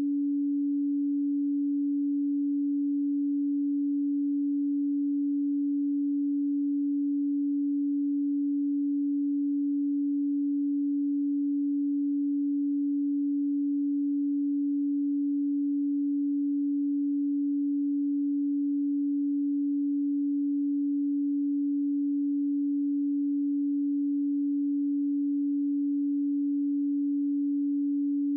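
A pure 285 Hz sine tone, a single steady low hum held at constant pitch and level.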